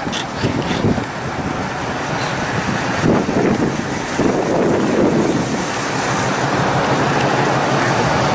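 Outdoor vehicle noise, with wind buffeting the microphone as a steady rushing noise. From about six seconds in a low, even engine-like hum joins it.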